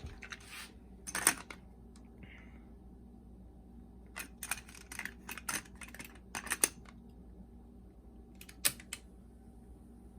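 Cassette deck transport keys and mechanism of a JVC M70 boombox clicking and clunking in scattered groups as the deck is switched between functions, over a faint steady hum.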